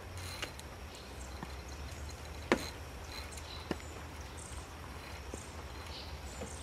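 Quiet outdoor ambience with a low steady wind rumble and a few faint high chirps, broken by a sharp click about two and a half seconds in and a softer click about a second later.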